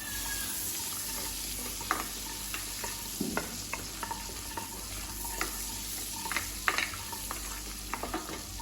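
Whole spices (cinnamon, cloves, cardamom and cumin seeds) sizzling in melted butter in a kadai while being stirred, a steady hiss broken by scattered sharp clicks and pops.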